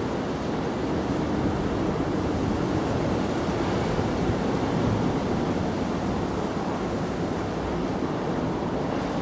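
A steady, even rushing noise, strongest in the low and middle range, with no distinct knocks or tones.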